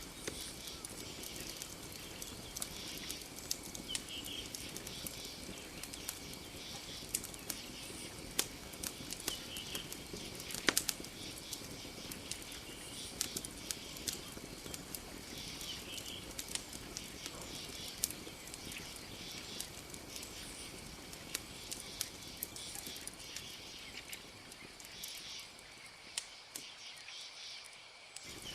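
Campfire crackling, with frequent sharp pops and one louder snap about ten seconds in, over a steady high-pitched drone of night insects.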